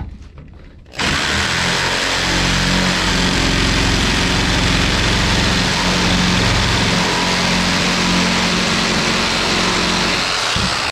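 Skil jigsaw cutting a curved line through a sheet of OSB, its motor and reciprocating blade running steadily. It starts about a second in.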